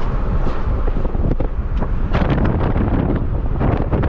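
Wind buffeting the microphone over a steady low vehicle rumble.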